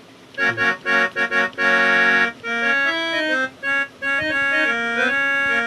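Casio SA-78 mini keyboard playing a short phrase with its harmony function on, each melody note sounding with added harmony notes. A few short chords lead to a held chord about two seconds in, then a run of single notes, then a long held chord near the end.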